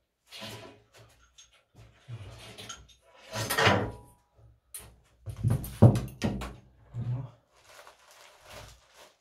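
Irregular knocks, clunks and scrapes of close-up handling. There is a louder rasping scrape about three and a half seconds in and a cluster of clunks around six seconds.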